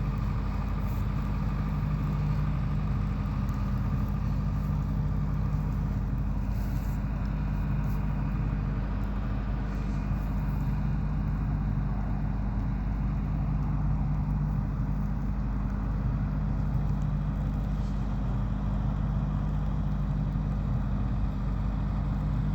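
Site generator engine running steadily, a constant low hum that holds the same speed throughout.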